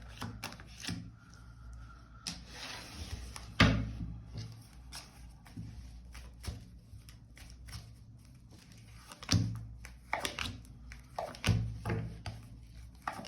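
Scattered light knocks and clicks, with one louder thump about three and a half seconds in, over a low steady hum.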